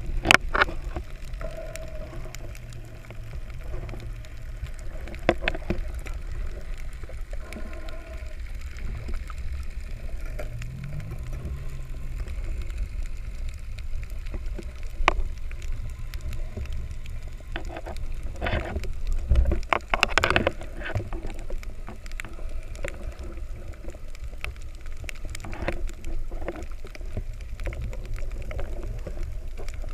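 Underwater sound picked up by an action camera in its waterproof housing while snorkeling over a coral reef: a steady low rumble of moving water, with scattered sharp clicks and knocks, a cluster of them about two-thirds of the way in.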